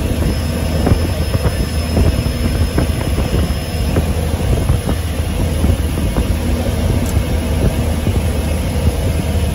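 Cessna 208 Caravan floatplane's turboprop engine at taxi power, heard inside the cabin as a loud, steady low drone, with many small knocks and rattles throughout.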